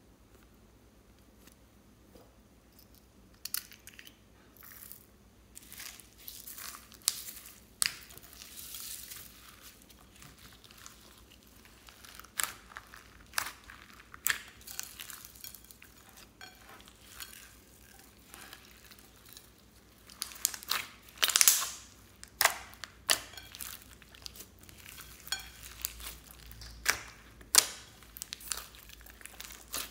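Hands kneading and pressing glossy slime packed with foam beads (floam), giving irregular crunching, crackling and popping sounds that start a few seconds in.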